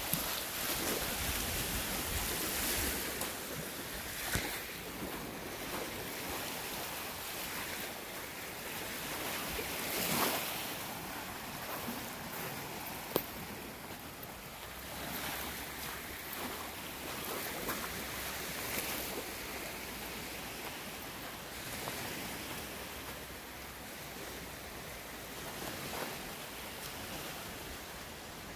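Small lake waves lapping on a gravel shore, with wind buffeting the microphone, and a few brief sharp sounds scattered through.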